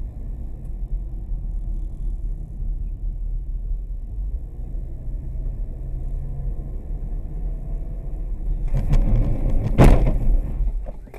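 Steady low road and engine rumble inside a moving car, then about nine seconds in a louder rush of hard braking and a sharp bang as the car collides with the vehicle ahead.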